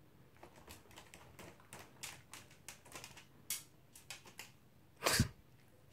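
A toy poodle moving in its wire crate: a run of light, irregular clicks and taps, then a louder thump about five seconds in.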